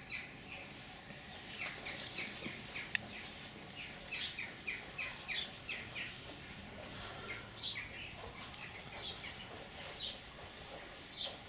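Small birds chirping: short, quick chirps that slide downward, coming in loose runs of several in a row. There is one sharp click about three seconds in.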